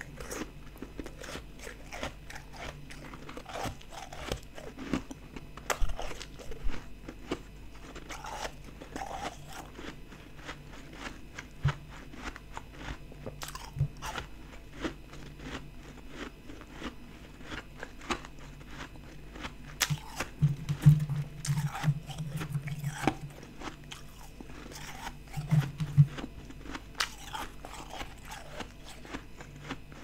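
A person chewing a mouthful of soft, powdery white ice close to the microphone: a continuous run of crisp crunches and crackles, with a few louder crunches scattered through it.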